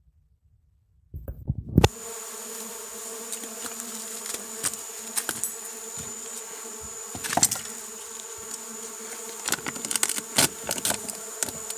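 Steady buzzing hum of mandaçaia stingless bees at a wooden hive box, starting after about a second and a half of near silence. A loud knock comes just as the buzz begins, and scattered clicks and knocks from handling the box follow.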